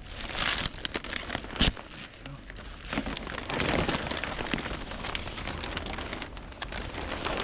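Packaging wrap on a new snowmobile crinkling and tearing as it is pulled off, with many small crackles and a sharp snap about one and a half seconds in.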